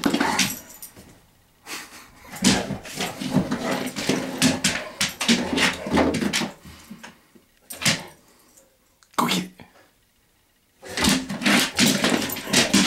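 Great Pyrenees making playful growling, grumbling noises in rough bursts, mixed with bumps and scratches against a glass door; there is a short quiet gap about ten seconds in.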